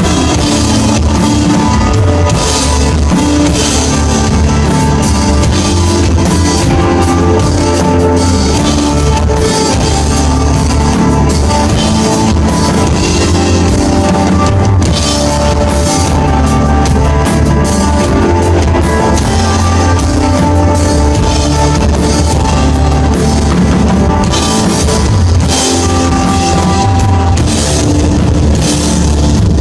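Rock band playing live: electric guitar, bass and drum kit, loud and steady.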